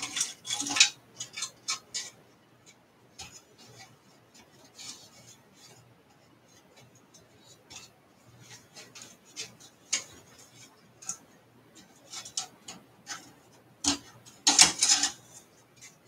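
Irregular light clicks and rattles of metal and plastic as wiring and parts are handled inside an open metal desktop computer case, with a louder clatter near the end.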